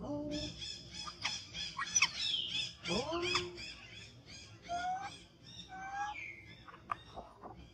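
Birds calling: a rapid run of high, evenly repeated chirps through the first half or so, with short whistled notes and a few gliding calls scattered through.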